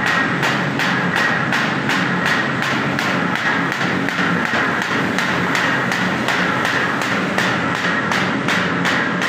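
Paper bag making machine running, its mechanism clattering in an even rhythm of about three to four strokes a second over a steady hum.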